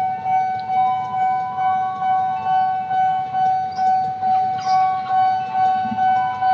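Railway level-crossing warning bell ringing, an electronic ding repeating steadily about twice a second, the signal that a train is approaching the crossing.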